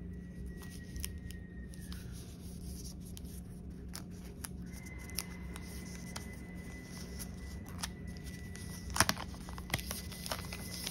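Clear plastic protective film crackling and crinkling as it is peeled off the back of a new smartphone, in scattered small crackles with a louder burst of crinkling about nine seconds in.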